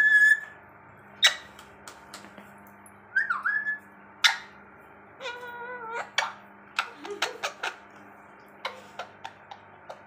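Young green parrot whistling a short dipping-then-rising note about three seconds in and giving a squeaky call about five seconds in, with sharp clicks scattered through, the loudest about one and four seconds in.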